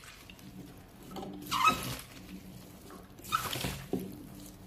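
Hands tossing and turning chopped raw tomatoes and onions in a stainless steel pot: soft wet squelches and rustles in a few short bursts, the loudest about one and a half seconds in.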